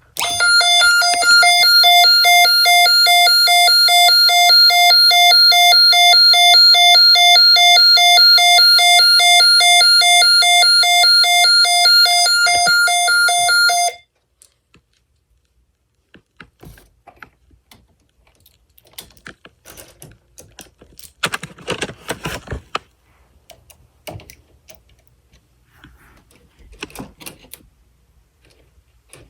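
Snap Circuits fire alarm sounding its supervisory signal: a loud, rapidly pulsing electronic tone that cuts off suddenly about 14 seconds in. Faint clicks and rustling follow.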